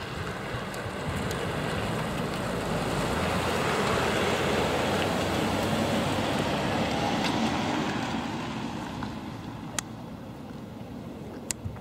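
A vintage limousine and a van driving past close by, their tyre and engine noise swelling to a peak and then fading away. Two sharp clicks come near the end.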